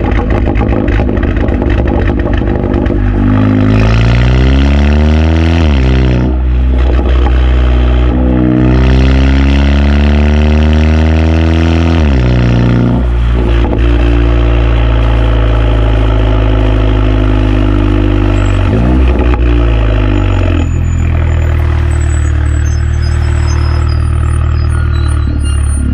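Turbocharged four-cylinder engine of a 2017 Audi A4 B9 through an Armytrix valvetronic cat-back exhaust with an 034 Motorsport racing catalyst. It accelerates with the pitch rising twice and dropping sharply at each upshift, then runs at a steadier cruise.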